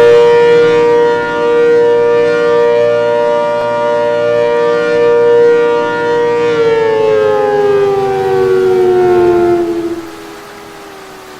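ACA Hurricane outdoor warning siren sounding a steady wail during a test. About six and a half seconds in it begins winding down, its pitch sliding lower. Near the end the sound drops away sharply, leaving a faint, falling tone as the rotor coasts.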